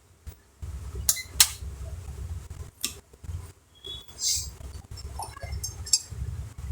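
A few sharp clicks and taps from small tools and laptop parts being handled on a workbench, with a short scrape about four seconds in, over a low rumble.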